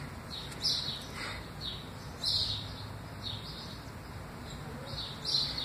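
Small birds chirping: short, high chirps repeating about twice a second.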